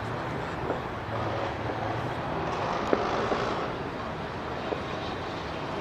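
Aerial fireworks bursting: a few short, sharp pops, the sharpest about three seconds in, over a steady background rumble.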